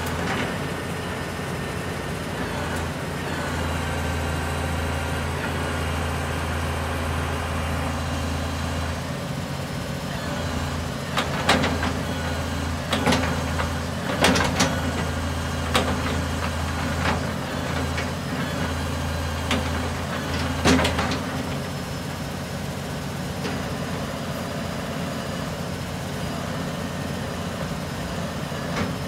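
Tree spade truck's engine running steadily while the operator works the spade's hydraulics, its low hum swelling in two long stretches as the blades move. A series of sharp metallic clanks and knocks comes in the middle.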